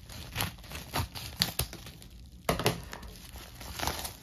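Scissors cutting open a padded mailer, with the envelope crinkling and rustling as it is handled. There are irregular sharp snips and clicks throughout.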